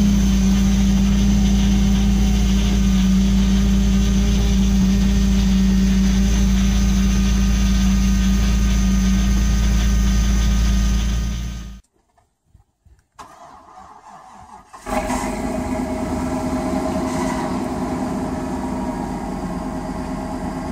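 A cold BMW engine running at a steady fast idle of about 2000 rpm in deep frost. It cuts off just before twelve seconds in. After a few seconds of near quiet, a 2007 Hummer H2's 6.0 Vortec V8, stood for days at −21°C, comes in abruptly about fifteen seconds in and runs steadily.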